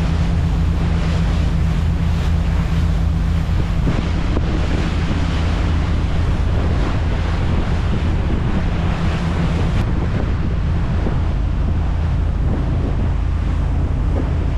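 A 40-foot trawler's diesel engine running steadily underway, a low even drone, with water rushing past the hull and heavy wind noise on the microphone.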